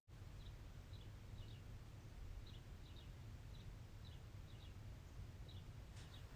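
Quiet room tone with a low steady hum, over which a bird chirps faintly in short high chirps, often in pairs, every half second to a second.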